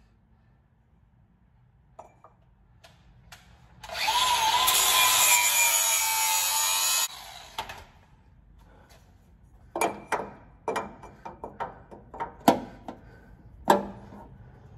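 A hand-held power tool runs in one loud burst of about three seconds, its pitch rising briefly as it comes up to speed, then cuts off sharply: it is taking a little more material off the end of a floor piece for driveshaft clearance. It is followed by a run of sharp knocks and clicks as the piece is handled and pressed into place.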